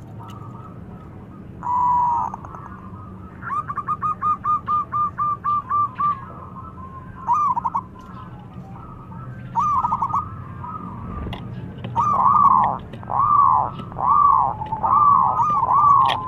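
Zebra dove (perkutut) singing its cooing song: a single note about two seconds in, then a quick run of short clipped notes at about four a second, a few paired notes, and from about twelve seconds in a steady series of longer rolling coos.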